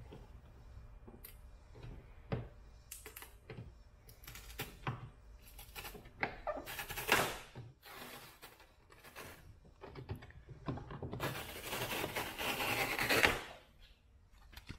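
A drill boring out the centres of pop rivets with a 7/64-inch bit, in a short run about seven seconds in and a longer run from about eleven to thirteen seconds, between scattered clicks and knocks.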